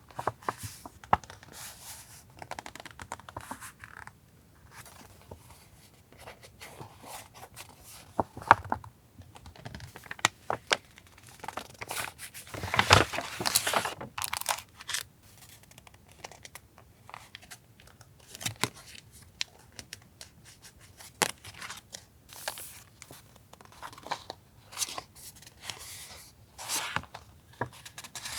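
Paper goods being handled close up: rustling, crinkling and tearing of paper and packaging, with many small taps and clicks and a longer, louder rustle about halfway through.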